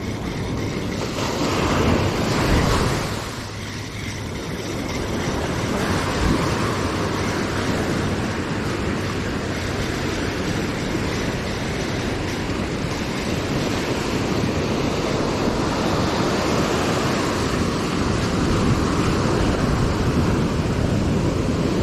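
Surf breaking and washing up a sandy beach, a steady rushing wash that swells about two seconds in and eases shortly after, with wind buffeting the microphone.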